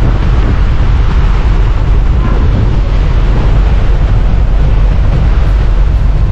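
Strong wind buffeting the microphone, a loud steady rush with a heavy low rumble.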